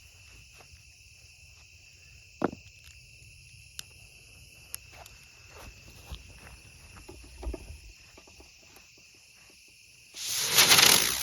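Crickets chirping steadily, with a few soft footsteps and knocks; about ten seconds in, a Top Gun Spectral Bats aerial spinner firework ignites with a sudden loud hiss.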